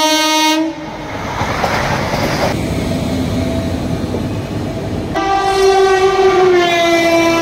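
Indian Railways train horns and a train passing at speed. A horn sounds and cuts off abruptly about half a second in. Then come a few seconds of the rushing rumble of a passing train. About five seconds in a long horn starts suddenly and drops in pitch as the train goes by.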